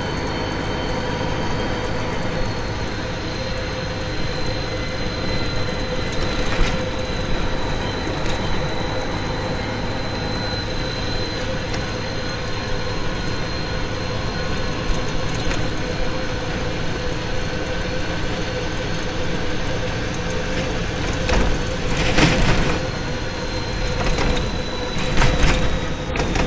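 Heavy truck on the move: a steady engine and tyre drone with a faint whine. Near the end, clattering knocks come as the truck rolls over the rough, worn bridge deck.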